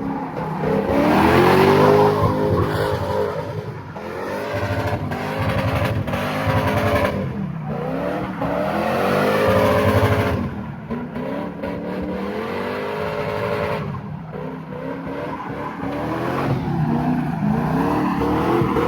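A 1997 Lexus LS400's V8 revving up and down again and again as the car slides in donuts, held in first gear without upshifting, with tyre squeal under it.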